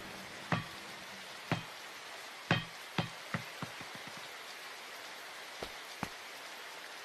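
Steady rain falling, with scattered sharp taps over it. Halfway through, a run of taps comes quicker and fainter, each closer to the last.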